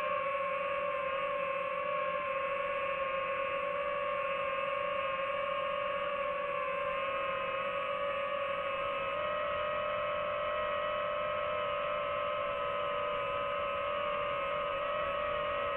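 DJI FPV drone's motors and propellers whining steadily as it hovers, one even tone that wavers slightly in pitch now and then.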